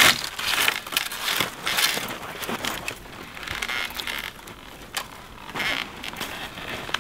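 Agawa Canyon Boreal 21 folding bow saw cutting wood, in uneven rasping strokes.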